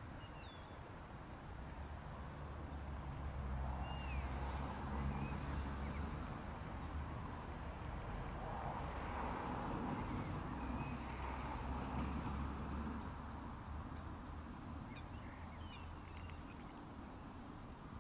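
Outdoor ambience: a low rumble that swells through the middle and fades again, with scattered short bird chirps over it.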